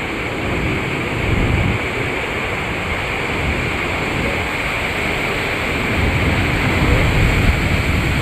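Steady rushing of water, with wind buffeting the microphone.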